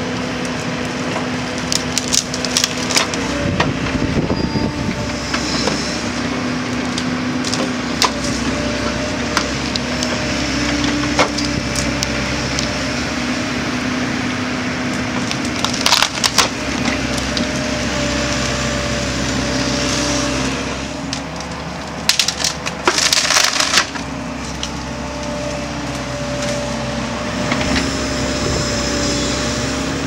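Liebherr 900 excavator's diesel engine and hydraulics running steadily while its hydraulic tree-felling head grips and cuts through tree trunks. Wood cracks and splinters in sharp snaps, with loud bursts about halfway through and again a few seconds later.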